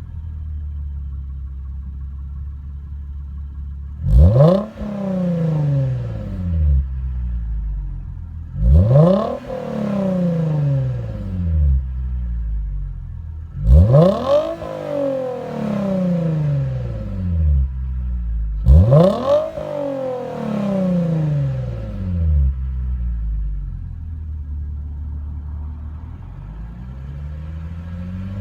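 2014 Lexus IS250's 2.5-litre V6, fitted with an Invidia Q300 axle-back and mid-pipe exhaust, idling and blipped four times about five seconds apart. Each rev climbs quickly and falls back to idle.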